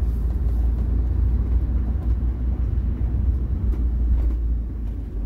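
Motorhome driving along a town street, heard from inside the cab: a steady low rumble of engine and tyre noise.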